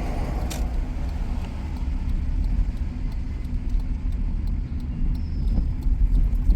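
Low, steady road-vehicle rumble, with faint scattered ticks.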